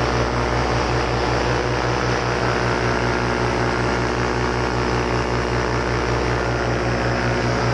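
Paramotor engine and propeller running steadily in flight, a loud, even drone with a fast pulsing beat.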